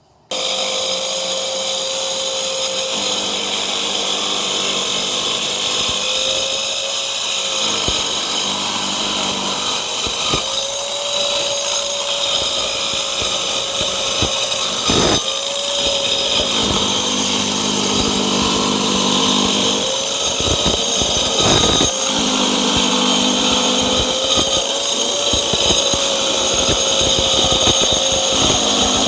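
Hyper Tough mini circular saw running at full speed, starting abruptly with a high whine; its motor pitch sags briefly several times and recovers.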